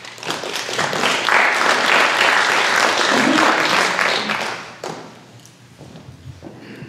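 Small audience applauding for about five seconds, building quickly and then fading out.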